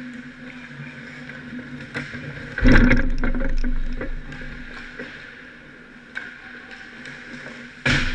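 Hockey play close to the goal: skates scraping and carving on the ice and sticks clacking. A loud knock with a rattle comes about two and a half seconds in, and another sharp hit near the end.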